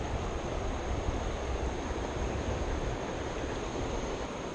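Steady rush of a mountain stream, an even wash of flowing water with no single splashes standing out.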